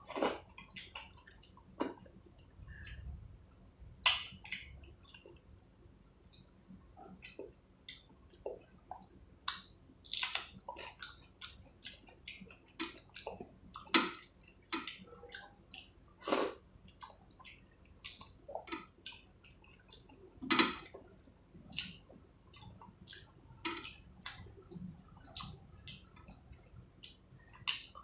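Eating sounds: wet, squishy mouth smacks and chewing of rice and curries, with irregular short clicks, a few louder than the rest.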